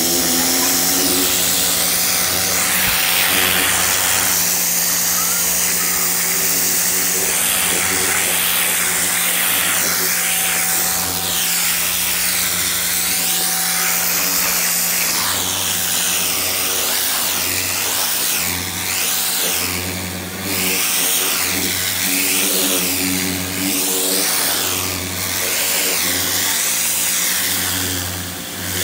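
Hart 2000 PSI electric pressure washer running, its motor humming steadily while the water jet hisses against a carpet. The hiss sweeps up and down in pitch over and over through the second half.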